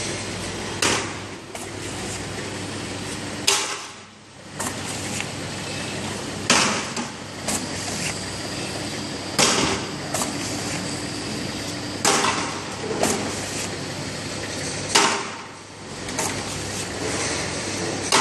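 Automatic flat-surface labeling machine running: a steady hum from the conveyor and drive, with a sharp clack about every three seconds and lighter clicks between.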